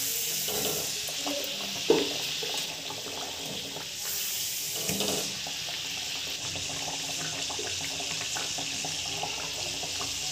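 A rice-flour dal puri deep-frying in hot oil in a steel kadhai on medium flame: a steady sizzling and bubbling hiss. There is one light knock about two seconds in.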